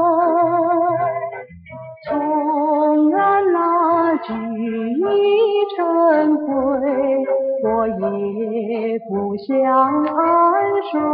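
A woman singing a slow song with vibrato over instrumental backing, with a short break in the phrase about one and a half seconds in.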